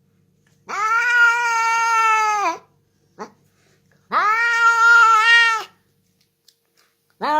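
A cat meowing in two long, drawn-out calls, with a brief short squeak between them.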